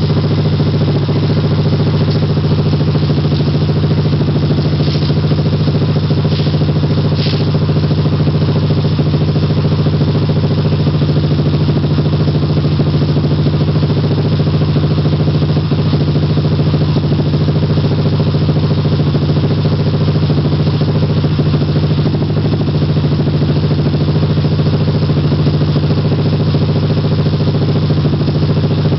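1978 Honda CB 125 motorcycle engine, its original engine block, idling steadily at a constant speed with no revving.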